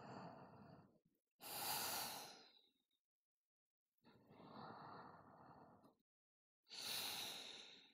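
A woman's deep, audible breathing paced to a seated spinal flexing exercise: two rounds of a softer in-breath followed by a louder out-breath, with short silences between.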